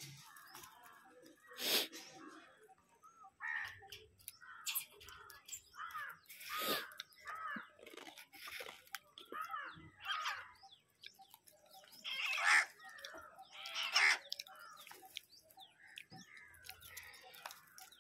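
A flock of house crows cawing on and off, calls overlapping at irregular intervals, with the loudest caws about 2, 7, 12 and 14 seconds in. Scattered sharp clicks between the calls fit beaks pecking at a concrete surface.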